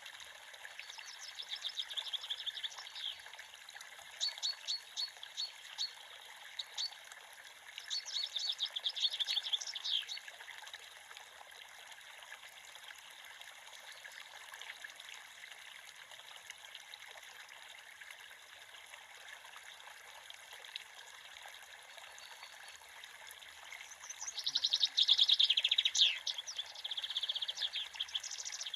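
A creek running steadily with small birds chirping over it: quick chirps come in bursts through about the first ten seconds, then mostly just the water, then a loud run of chirping near the end.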